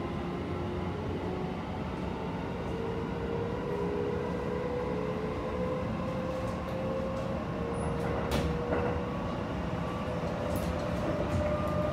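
Hokuso 7500 series train's Toyo IGBT-VVVF inverter and traction motors whining as the train accelerates, the tones rising slowly in pitch over the steady rumble of the running car, heard from inside the car. A few faint clicks come in near the end.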